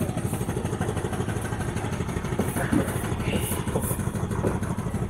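A motor vehicle's engine idling close by, a steady rapid low throb, with a few light knocks over it.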